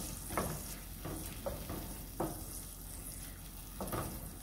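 Chopped onions sizzling in olive oil and clam juice in a skillet, with a wooden spoon stirring and scraping the pan in about four short strokes.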